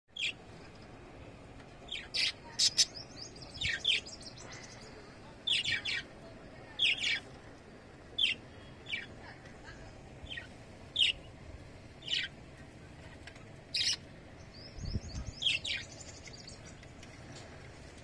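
Budgerigars chirping: short, sharp, high calls about once a second, with a couple of quick warbling runs of notes.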